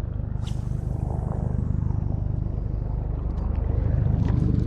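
Boat engine running steadily with an even low pulse, getting louder near the end, as the boat is moved back into position; a brief swish sounds about half a second in.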